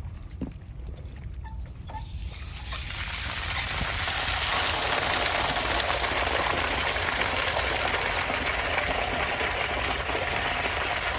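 Water gushing out of a fire truck's open tank discharge valve and splashing onto the wet ground as the tank is drained. It starts about two seconds in and builds to a steady rush.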